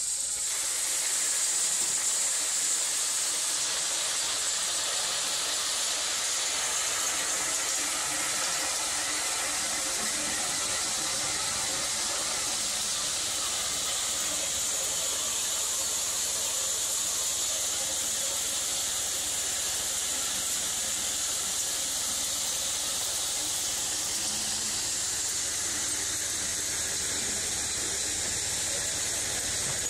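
A 24 by 16 heavy-duty hammer mill running steadily as it bashes shotgun shells apart against a half-inch slotted screen. It makes a loud, even, hiss-like noise with no breaks.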